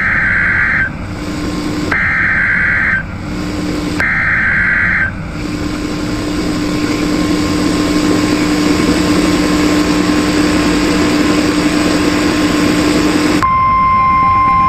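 Emergency Alert System SAME header: three data bursts of shrill digital warbling, each about a second long and two seconds apart, the coded header that opens a new warning, here a tornado warning. Then comes several seconds of hissing static with a low steady hum. Near the end, the steady single-pitched NOAA Weather Radio warning alarm tone starts.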